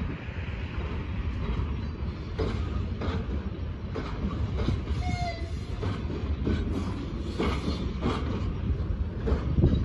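VL80S electric locomotive passing at the head of a freight train: a steady low rumble with irregular wheel clicks over the rail joints.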